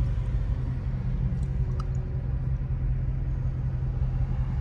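Dodge Charger SRT's V8 engine and road noise heard from inside the cabin while cruising, a steady low drone.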